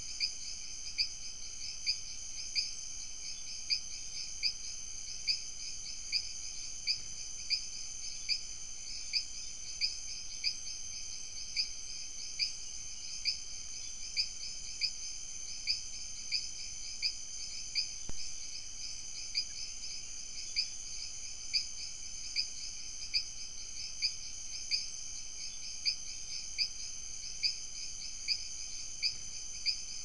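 Steady night chorus of rainforest insects, with one loud high chirp repeating evenly about three times every two seconds. There is a single faint click about two-thirds of the way through.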